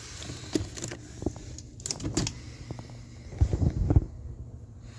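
Firework packages being handled and moved around in a box: scattered clicks, knocks and rustles, with a few heavier thumps about three and a half to four seconds in.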